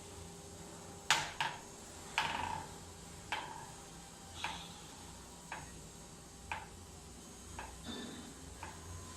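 Sharp metallic taps, about one a second, the first few louder with a brief ring, as of light hammer taps on CNC router spindle parts during bearing replacement.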